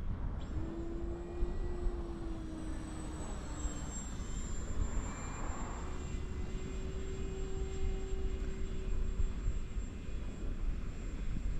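Multiplex Blizzard RC model plane's electric motor and propeller whining in flight, with steady tones that drift slightly in pitch and fade in and out, over a low rumble of wind noise.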